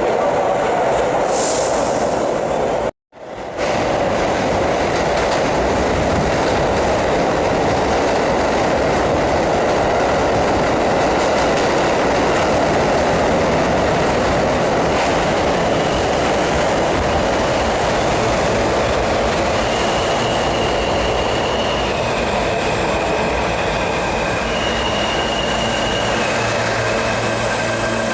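New York City subway train running through the station with a loud, steady rumble. From about halfway on, its wheels squeal in thin high tones that come and go.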